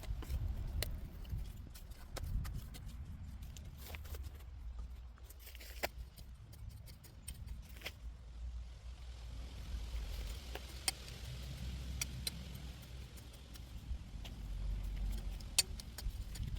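Potatoes being dug out of a garden bed: scattered light clicks and rustles over a steady low rumble of wind on the microphone.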